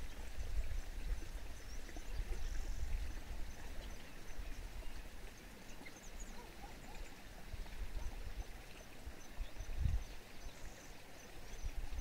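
Outdoor countryside ambience: a low, uneven rumble under an even hiss, with faint high chirps repeating a few times a second.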